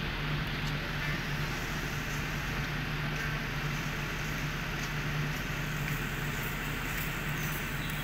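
Steady background noise with a low, even hum running through it, and a few faint ticks near the end.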